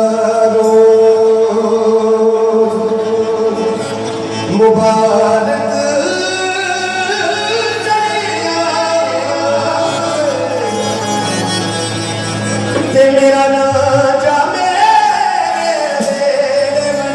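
Male voice singing Punjabi Sufi-style long, held notes that slide and bend in pitch, over instrumental accompaniment.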